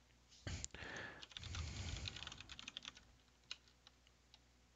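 Faint typing on a computer keyboard: a quick run of keystrokes lasting about three seconds, then a few single clicks.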